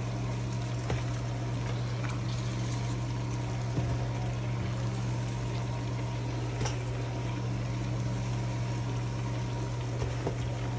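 Chicken wings deep-frying in a pot of hot canola oil: a steady bubbling sizzle over a steady low hum, with a few faint clicks of metal tongs as wings are lifted out.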